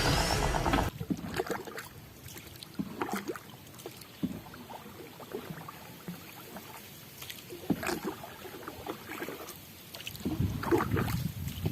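Intro music cuts off about a second in. Then scattered light knocks, clicks and small water sounds around a small boat on a river, with a louder low rush near the end.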